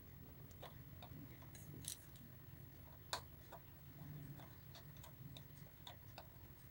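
Faint, irregular light clicks and taps from small tools being handled during hand soldering work, over a low steady hum; the sharpest tap comes about three seconds in.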